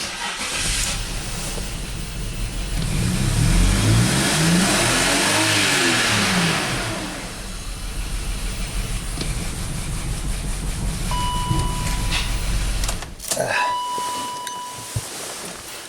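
A misfiring BMW X5 six-cylinder engine starts and is revved once at wide open throttle, the pitch rising and then falling. It then idles erratically until it is switched off about thirteen seconds in. Two short electronic beeps sound near the end.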